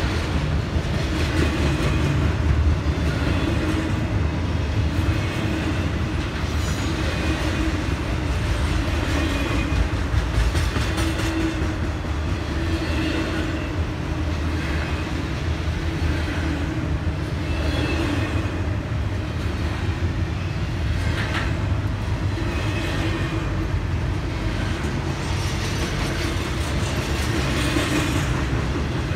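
Double-stack intermodal freight cars rolling past, steel wheels clicking over the rail joints again and again above a steady rumble.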